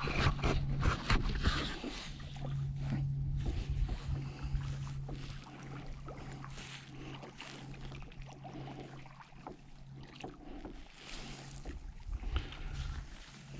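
Kayak paddling: paddle blades dipping and splashing in the water at an uneven rhythm, with water dripping off the blades. A steady low hum runs underneath and drops out for stretches.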